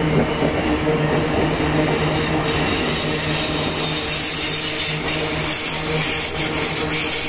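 Loaded iron-ore gondola wagons of a freight train rolling past, a steady rumble and clatter of steel wheels on the rails with wheel squeal on top. The high hiss grows stronger about two and a half seconds in.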